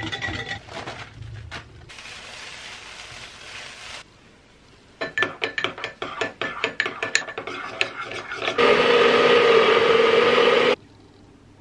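Kitchen prep sounds. First a wire whisk clicks rapidly against a ceramic mixing bowl. Later a metal spoon clinks and scrapes quickly in a small ceramic ramekin. Loudest of all, a NutriBullet blender runs steadily for about two seconds, blending green spinach batter, and cuts off suddenly.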